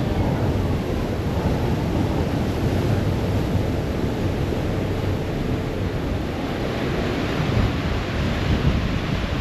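Wind buffeting the microphone over the steady rush of water churned up by a moving ferry and its wake.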